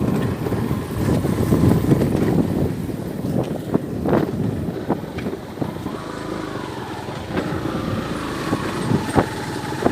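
Steady engine and road noise of a moving vehicle, with a few sharp knocks along the way.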